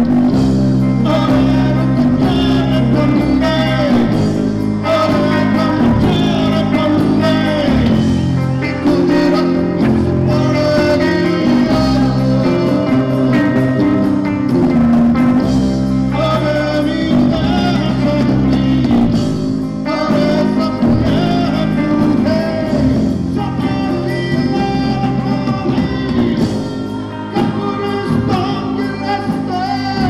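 Live band playing folk-rock fusion: electric bass, guitar and drum kit, with a man singing the lead vocal.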